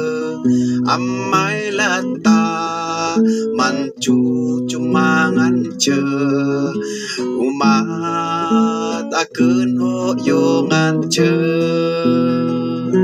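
Acoustic guitar playing an instrumental passage, with the notes and chords changing every half second or so.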